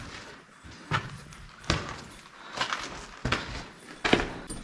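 Walking footsteps on the sandy, gritty floor of a slot canyon, about one step every three-quarters of a second.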